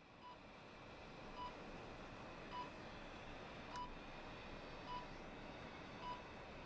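Hospital patient monitor beeping with the heartbeat: a short, high beep just under once a second, evenly spaced, over a faint steady room hum. The sound fades in over the first second.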